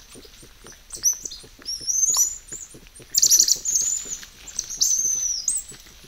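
Band of South American coatis foraging in leaf litter: a steady patter of scratching and rustling, with high-pitched chirping squeals starting about a second in and coming thickest just past the middle.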